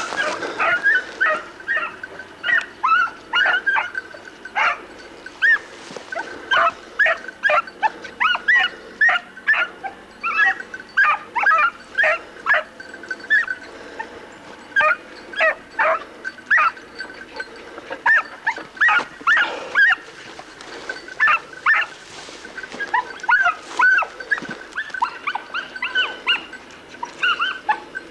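Hunting beagle baying in short, high yelps, one after another with brief pauses. This is typical of a hound giving tongue on a hare's scent while flushing it from cover.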